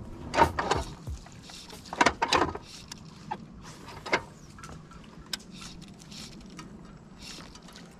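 Fly line being stripped in by hand through the rod guides during a streamer retrieve: a few quick swishing pulls, mostly in the first half, with a sharp click about five seconds in.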